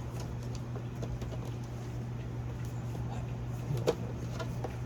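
A steady low hum with a few faint clicks, and one brief sharper sound about four seconds in.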